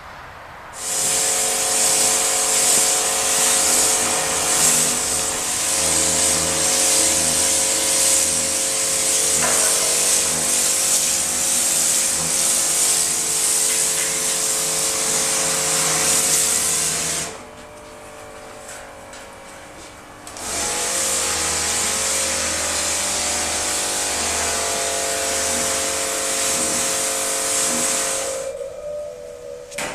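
Sawmill woodworking machine running through wood in two long passes, a hiss over a steady machine hum. The first pass lasts about sixteen seconds, the second about eight, with a quieter idle hum between them.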